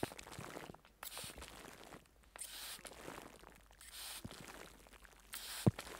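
Hand spray bottle spritzing water onto a microphone wrapped in plastic cling film: about five short hissing sprays, roughly one a second, with light crinkling of the film between them. A sharp knock comes near the end.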